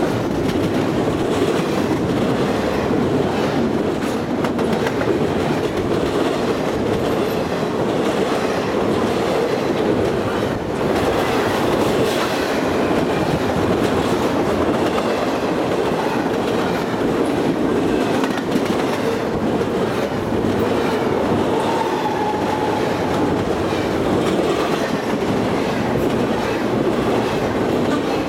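Double-stack container cars of a freight train rolling past close by: a loud, steady rumble of steel wheels on rail, with repeated clicks as the wheel sets go by. About three-quarters of the way through, a brief faint wheel squeal rises above it.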